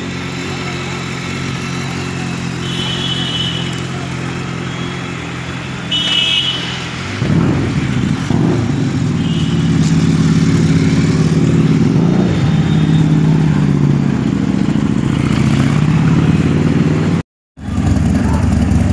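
Motorcycle engines idling steadily, then a BMW K1300R's inline-four revs and runs louder, its pitch rising and falling as the bike pulls away. Near the end the sound cuts out for a moment and another motorcycle engine idles.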